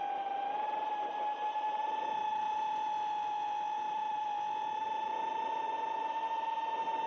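Steady high-pitched whine of an FPV freestyle quadcopter's brushless motors (iFlight Xing 2206 2750kv) and three-blade Ethix S3 propellers under steady cruising throttle. The pitch holds nearly even throughout, heard from the drone's own onboard camera.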